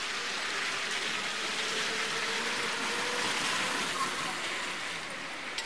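Busy village street ambience: a steady rushing hiss with murmured voices of passers-by, and a faint steady whine during the first few seconds.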